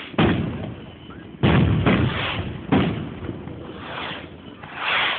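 Firework bangs going off at a street procession: several sharp, loud bangs at irregular intervals, each trailing off in an echo, the loudest about a second and a half in.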